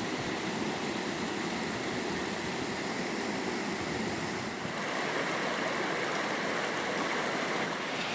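Floodwater flowing, a steady rushing noise that grows a little louder about five seconds in.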